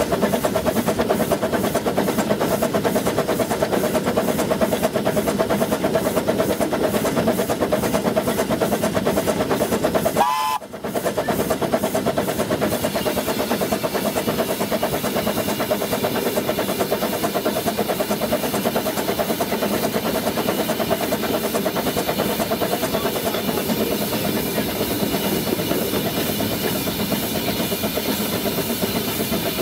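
Baldwin WD 4-6-0 tank steam locomotive running under way, heard from its footplate: a steady, fast, even beat of exhaust and running gear with steam hiss. There is a brief break about ten seconds in.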